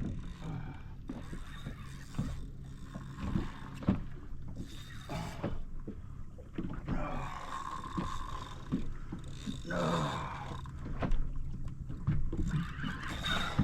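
Boat motor running with a steady low hum, with scattered knocks on the boat.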